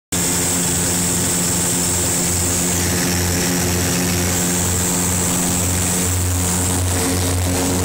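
The twin four-cylinder Lycoming piston engines and propellers of a Beechcraft Duchess run at takeoff power, heard inside the cockpit. They make a steady drone with a low throb that pulses about twice a second, over a high rush of air.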